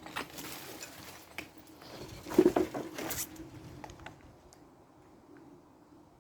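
Footsteps scuffing and crunching over a debris-strewn floor, a scatter of small clicks and scrapes with the loudest cluster about two and a half seconds in, then fading away after about four seconds.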